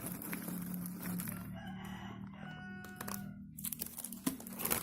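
A rooster crowing in the background, one call of about a second midway through, over a steady low hum and faint rustling.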